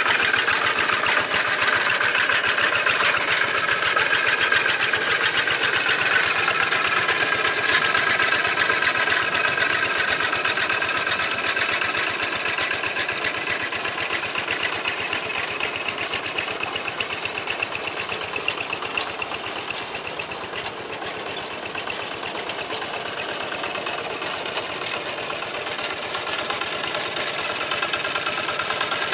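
Old Kubota single-cylinder diesel engine of a walking hand tractor running steadily under load, a rapid even knocking beat, as it drags cage wheels through a flooded rice paddy to level the mud. It grows a little quieter past the middle and louder again near the end.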